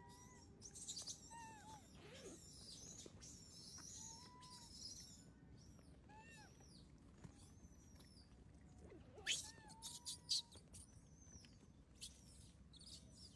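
Faint bird chirps and short whistled calls that rise and fall in pitch, with a few soft clicks past the middle.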